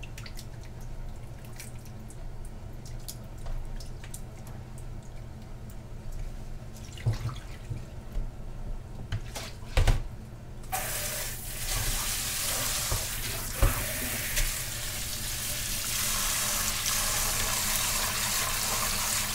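A few knocks and clinks, then the kitchen tap is turned on about halfway through and water runs steadily, splashing onto oysters in a metal mesh strainer over a bowl in a stainless steel sink, getting louder near the end. This is the rinsing of the oysters under the tap.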